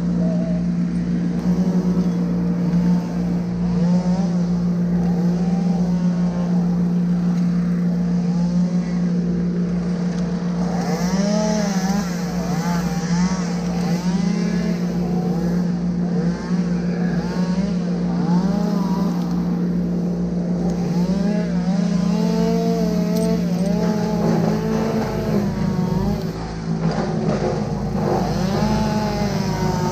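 An engine running steadily with an even low pulse, its note changing about 25 seconds in.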